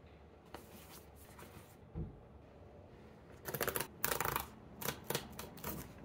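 Cardboard packaging being handled and slid open by hand: a soft knock about two seconds in, then several short bursts of paperboard scraping and rustling, loudest a little past the middle.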